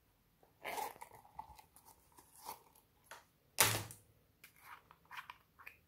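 Hands working glossy slime, making irregular sticky clicks and squelching pops. The loudest pop comes about three and a half seconds in.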